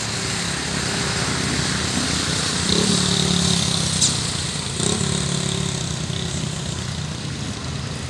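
Car engine idling steadily with a low hum, swelling a little twice, about three and five seconds in.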